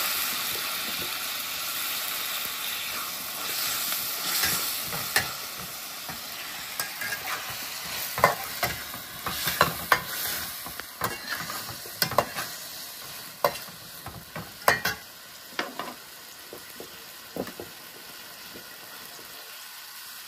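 Green vegetables sizzling in a hot aluminium wok while a metal spatula stirs them, scraping and clinking against the pan many times through the middle. The sizzle fades toward the end.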